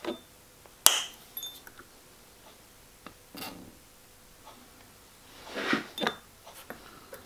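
Small metal-and-glass clicks and clinks: side cutters snip thin silver-solder wire with a sharp snap about a second in, and pieces and a thin wire clink against a small glass dish, loudest in a cluster near the end.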